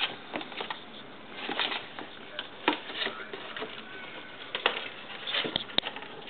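A kitten scrabbling at a cardboard box and on a tile floor: irregular scrapes, taps and cardboard rustles, with a sharp click near the end.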